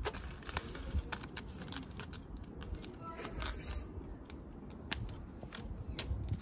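A cat's claws scratching and catching on a weathered wooden plank and a large leaf as it paws and bats at them: a run of sharp clicks and scrapes, with a rustle of the leaf a few seconds in.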